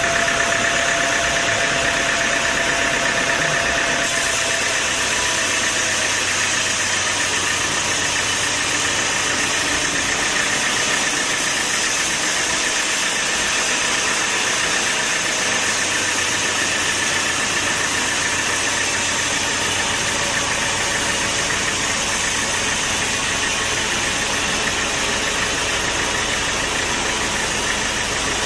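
Sawmill machinery running steadily, a loud, even mechanical noise with a faint whine that fades about four seconds in.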